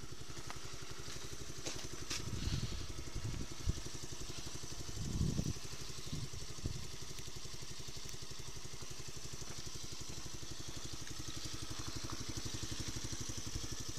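Small four-stroke engine of a DUX 8+ Mowgli children's quad bike idling steadily, with a couple of brief muffled low thumps about two and a half and five seconds in.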